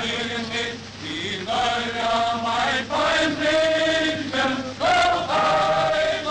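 Massed voices chanting or singing together in long held notes, sliding between pitches, growing louder about a second and a half in.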